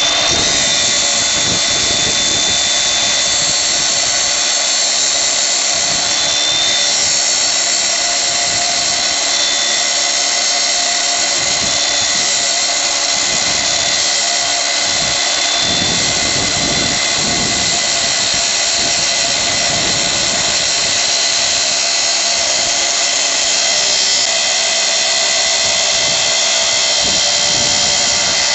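Motor of a corded electric power tool running steadily at constant speed: a continuous high whine that holds its pitch throughout.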